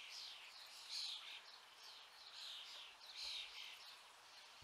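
Faint bird chirps: short falling notes, about two a second, behind a quiet background hiss.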